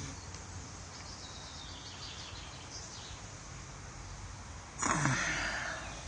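Steady outdoor street background with a few faint, high bird chirps, then about five seconds in a louder breathy voice sound from the person, falling in pitch.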